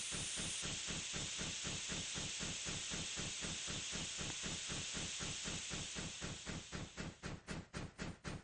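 Steam locomotive hissing steam in a fast, even pulse of about five or six beats a second, breaking into separate puffs near the end.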